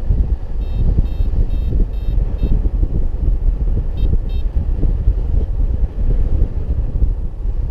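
Wind buffeting the microphone of a paraglider in flight, a heavy gusting rumble. Over it a variometer beeps: a run of five short high beeps about a second in, then two more about four seconds in, its climb tone marking rising air.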